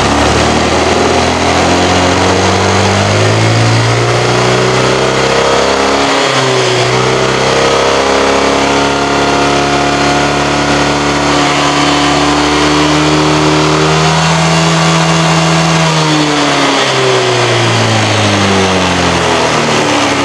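Honda PGM-FI scooter engine revved with the rear wheel spinning free. The revs climb, stall and drop back about six seconds in, then climb again once the throttle is eased and reopened, hold high, and fall back from about sixteen seconds in. The held-back rise is the symptom the mechanic puts down to a clogged exhaust and catalytic converter.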